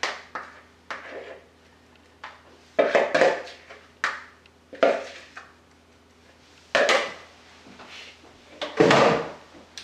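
A utensil scraping and tapping sauce out of a plastic mixing bowl: about seven short scrapes and knocks at uneven intervals. A louder clunk comes near the end.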